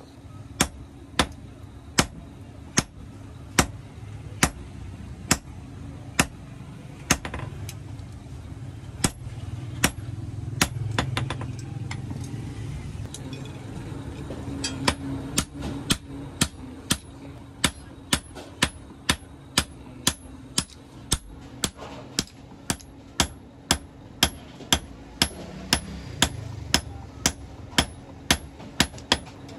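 Blacksmith's hand hammer striking a red-hot iron piece on a steel block anvil: sharp ringing blows about one a second, sparser about a third of the way in, and quicker, about two a second, in the last third. A steady low hum runs underneath.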